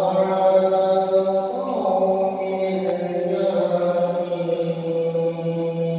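A solo male voice chanting a devotional melody without accompaniment, holding long, steady notes.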